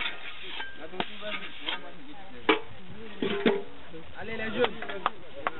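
Shovel scooping sand mix into a hand block mould, with several sharp knocks of the blade against the mould and people talking in the background.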